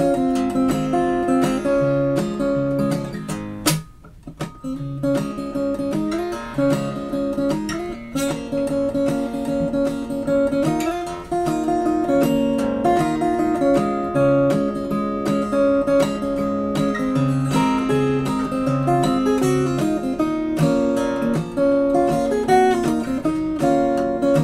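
Background music led by an acoustic guitar, plucked and strummed in a steady melody, with a brief dip in level about four seconds in.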